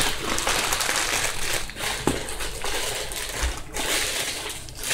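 Rustling and crinkling of a small plastic bag of holographic glitter being handled, with a short lull near the end.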